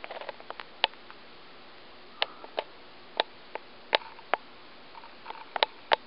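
Casablanca Palisades ceiling fan with a direct-drive motor running, a faint steady hiss of moving air, with about a dozen sharp clicks and ticks coming at irregular intervals.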